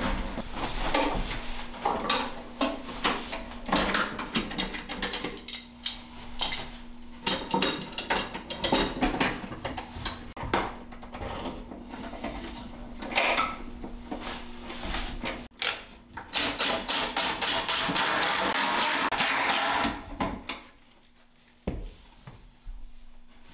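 Plywood cabinet panels being handled and clamped together: a run of knocks and clicks from the boards and the ratcheting of bar clamps. Later a cordless drill runs for a few seconds and stops.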